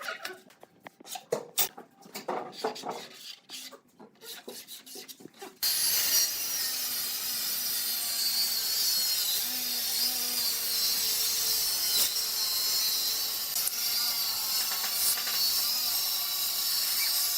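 Woodworking on wood: irregular scraping and knocking at first, then about six seconds in a power tool starts working the wood with a steady, high hiss that runs on.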